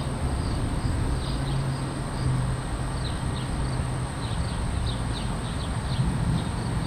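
Outdoor ambience ahead of a storm: small birds chirping over and over, a steady high insect drone, and a constant low rumble underneath.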